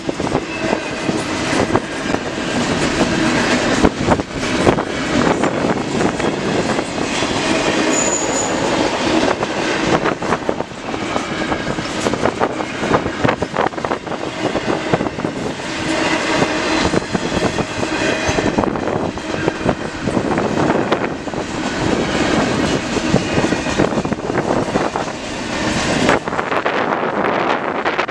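CN intermodal freight train's cars rolling past at speed, wheels clicking and clacking steadily over the rails, with a brief high squeak about eight seconds in.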